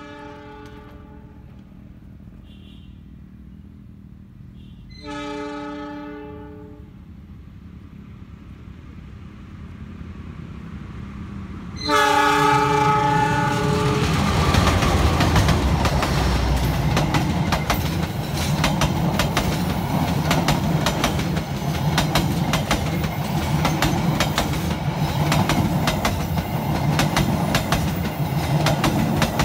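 Multi-tone air horn of an Indonesian diesel locomotive sounding three times as the passenger train approaches: a short blast at the start, a longer one about five seconds in, and a loud one a little before halfway as the locomotive draws level. Then the locomotive's engine rumbles past and the carriage wheels clatter over the rail joints as the train runs close by.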